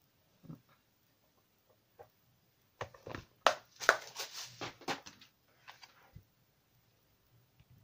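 Craft supplies handled on a wooden table: a few light taps, then a run of sharp clicks and crinkles from about three to five seconds in as a carded pack of buttons is moved about.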